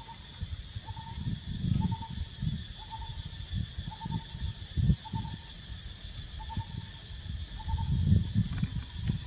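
Insects droning steadily and high in the background, with a short call repeating about once every second, over a low uneven rumble of wind on the microphone.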